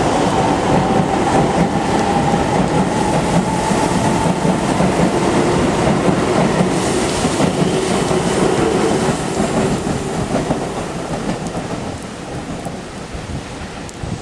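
Keisei electric commuter trains pulling out together, their traction motors whining and rising slowly in pitch as they gather speed over the rattle of wheels on the rails, the sound dying away over the last few seconds; heavy rain falls throughout.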